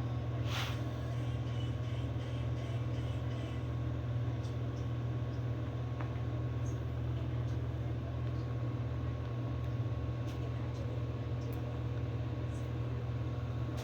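Steady low hum with a few faint clicks and ticks.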